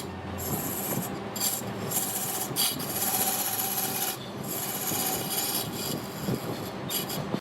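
Lathe turning tool scraping a spinning redwood log on a large wood lathe: a continuous rasping hiss, broken by several brief pauses as the cut lifts off.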